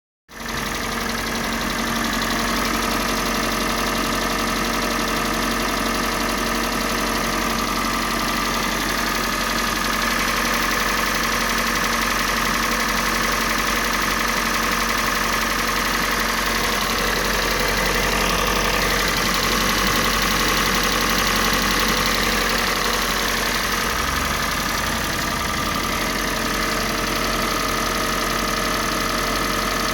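Kia Sportage 3's G4NA 2.0-litre four-cylinder petrol engine idling steadily, with the knock that the owner is chasing in it.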